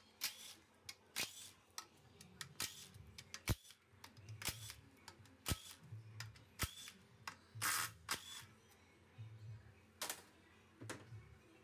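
A cordless power tool spinning out the oil pan bolts of a 4L60E automatic transmission, its motor running in short half-second runs about every second and a half. Sharp clicks and knocks of the socket and metal parts come in between.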